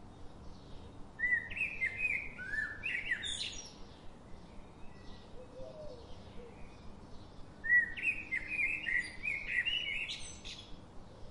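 Two phrases of songbird song, each a quick run of chirping notes that ends in a rising sweep. Fainter, evenly repeated chirps of other small birds run behind.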